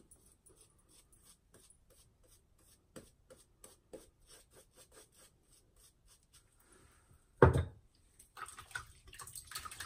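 A badger shaving brush, a Simpson Chubby 1, is worked over a lathered face in quick rubbing strokes, about three a second, building Nivea shave cream into a lather. A short thump comes about seven and a half seconds in, then denser rubbing near the end.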